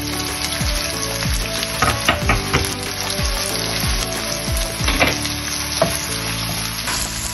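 Sliced onions with ginger and garlic sizzling steadily as they fry in olive oil in a non-stick pan, stirred with a wooden spatula near the end.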